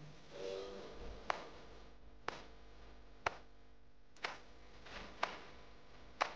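Sharp ticks, evenly about once a second, six in all, over faint held musical notes: a quiet, clock-like passage of background music.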